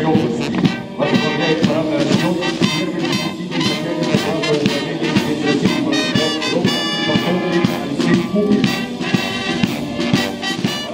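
Military brass band playing a march, with trumpets and trombones over a steady beat.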